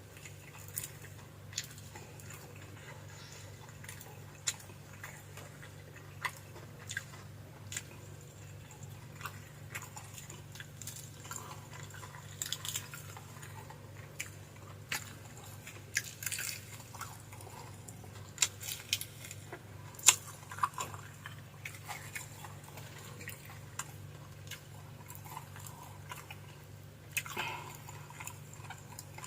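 A person chewing and eating close to the microphone, with many scattered short clicks and wet smacks, over a steady low hum.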